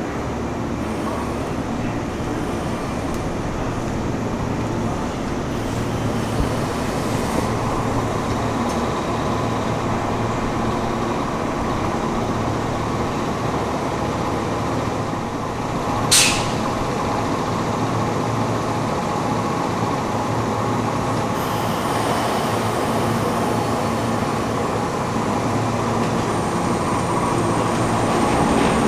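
JR West 103 series electric train standing at a station platform, its equipment giving a steady hum, with one short, sharp high-pitched sound about halfway through. Near the end the noise grows as the train starts to pull away.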